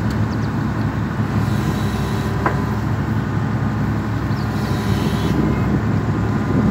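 Excavator-mounted hydraulic vibratory pile hammer running as it drives a steel pipe pile, a loud, steady mechanical drone with a low hum.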